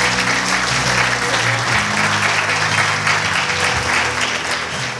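Guests applauding steadily, with music playing underneath.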